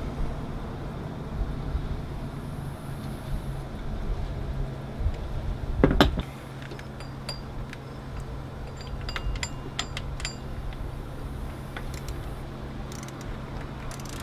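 Small metallic clicks and clinks of the power steering pump's mounting bolts and a hand tool being handled and started in their holes, with one louder knock about six seconds in. A steady low hum runs underneath.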